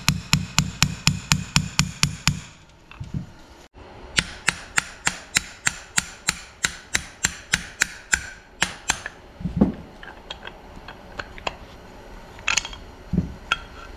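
Hammer tapping the wrist pin out of an aftermarket aluminum piston from a 1914 Ford Model T engine: quick, even metallic strikes about four a second, a short pause, a second longer run, then a few lighter scattered taps near the end.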